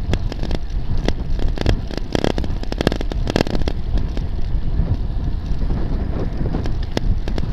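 Wind buffeting the microphone of a bicycle-mounted camera during a road ride, with a steady low rumble of the bike rolling on the road. A run of sharp clicks comes between about two and three and a half seconds in.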